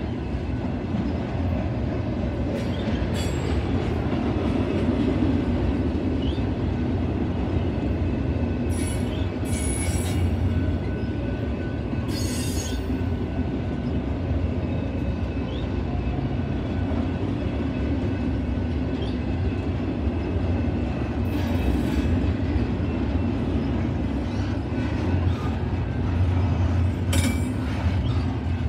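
Freight train cars, first autoracks and then double-stack intermodal well cars, rolling past close by: a steady low rumble of steel wheels on rail, with several brief high-pitched screeches.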